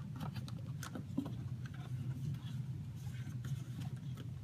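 Light rubbing and scattered small clicks of fingers working a rubber gasket into the grinder opening of an espresso machine's housing, over a steady low hum.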